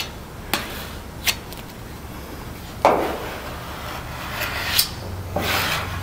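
Plastic filler spreader scraping body filler across a car roof panel: a few light clicks, then a longer scraping stroke about three seconds in and another near the end. The filler has begun to go cheesy as it starts to set.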